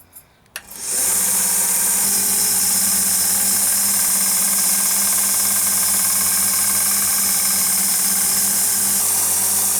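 Power grinder, most likely a belt grinder, running steadily as the knife's bevel is ground into the steel blade, a loud even hiss over a low hum that starts about a second in.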